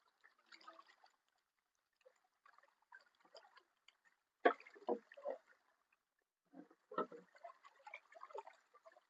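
Faint water sloshing and dripping around freshly caught fish, with sharp knocks about four and a half and seven seconds in.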